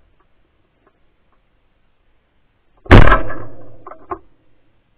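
A single shotgun shot about three seconds in, very loud, with a trailing echo that fades over about a second and a half, followed by two short knocks about a second later.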